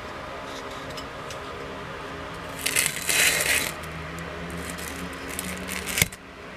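A rusty steel meat cleaver handled on a paper-covered bench: a loud rough noise lasting about a second, starting about two and a half seconds in, a few light clicks, then a sharp knock about six seconds in as the blade is set down. A steady low hum runs underneath.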